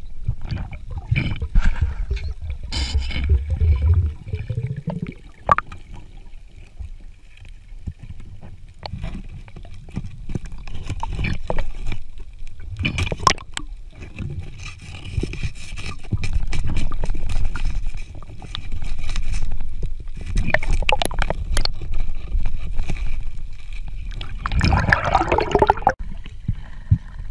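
Muffled underwater sound picked up by a submerged camera: a low water rumble with scattered sharp clicks and knocks and swells of noise.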